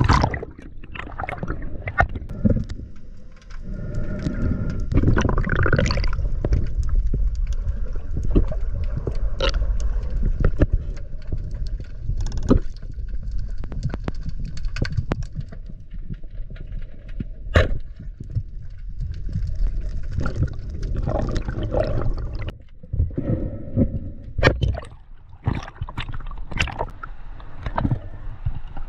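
Underwater sound from a diver's camera housing: a muffled low rumble of moving water with bubbling and scattered sharp clicks.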